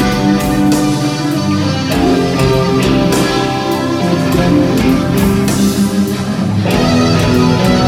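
Live hard-rock band playing loud: electric guitars playing sustained lead lines over bass and drums, heard from the audience through the venue PA.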